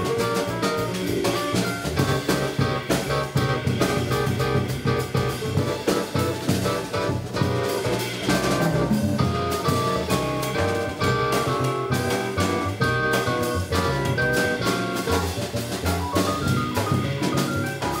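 Live jazz combo playing: a hollow-body electric guitar and an electric keyboard over a drum kit and low bass notes.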